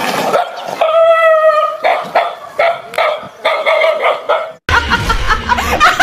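A dog barking: one drawn-out yelp about a second in, then a quick run of short barks, about three a second. The barking cuts off abruptly near the end.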